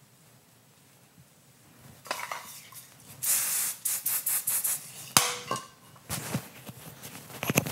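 Aerosol hairspray hissing onto hair: one long spray about three seconds in, then a quick run of short spurts. A sharp knock follows just after the spraying and is the loudest sound, with light rustling of hair being handled near the end.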